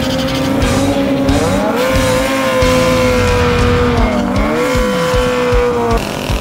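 Drag motorcycle burnout: the engine held at high, steady revs while the rear tyre spins and squeals, its pitch dipping and climbing back about four seconds in and dropping away near the end. Background music plays underneath.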